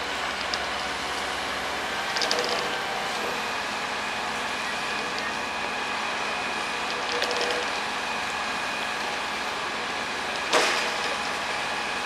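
Crawler crane engine running steadily while it hoists a heavy steel drop weight over a pile, with one sharp metallic clank near the end.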